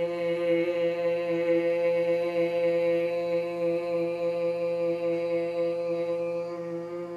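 A woman chanting one long, steady held tone of the qigong heart healing sound "Xing", begun with a brief hiss, on a single unchanging pitch that eases off slightly near the end.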